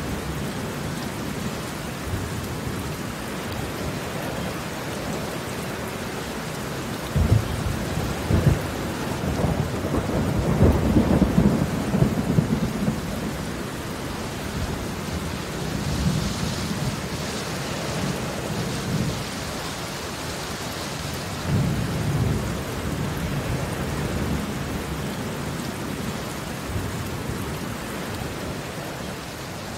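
Steady rain falling on concrete pavement, a dense continuous patter of drops. Low rumbles swell in about seven seconds in and are loudest around eleven seconds, with smaller ones later.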